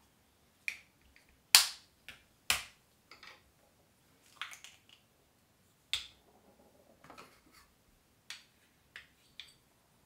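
A series of about nine sharp, irregular clicks and snaps from hands tying hair up into a bun with an elastic hair tie, the loudest about one and a half seconds in, with a softer rustle around seven seconds.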